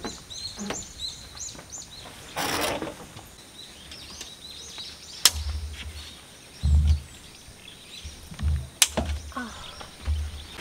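Handling sounds from a tent being pitched: a brief rustle of fabric a couple of seconds in, two sharp clicks, and several dull thuds on a wooden deck. Birds chirp faintly in the background, mostly in the first couple of seconds.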